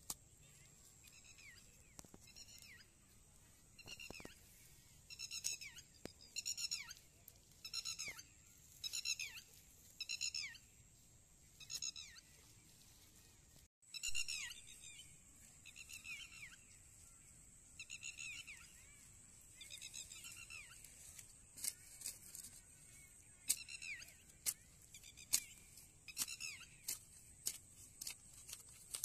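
An animal calling over and over: short, high calls that fall in pitch, about one a second, with a pause about halfway through. Sharp clicks come in among the calls in the second half.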